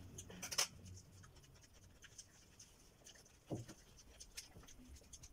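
Scissors snipping through a lettuce leaf, then soft crinkling and scratchy rustling as a fresh lettuce leaf is handled and folded, with one short louder thump about three and a half seconds in.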